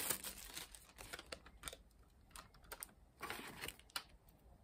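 Faint clicks and taps of plastic sunglasses being handled, with a short rustle about three seconds in.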